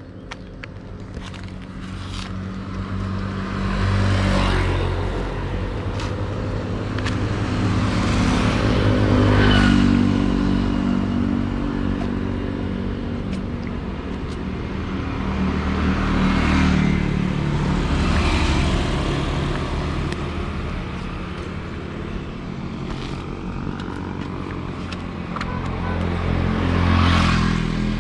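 Road traffic passing: about five motor vehicles swell and fade one after another, over a steady low engine hum and road noise.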